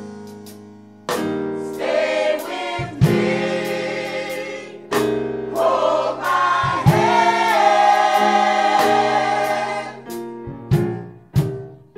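Small gospel vocal group singing in harmony over piano chords. The voices come in about two seconds in, swell into one long held chord, and stop about ten seconds in, leaving the piano alone.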